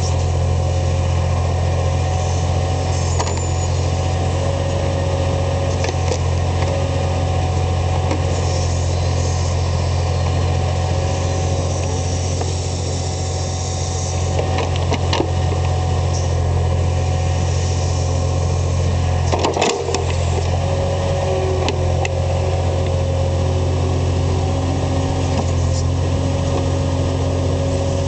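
Skid loader engine running at a steady speed, with a few brief knocks and a short dip about two-thirds of the way through.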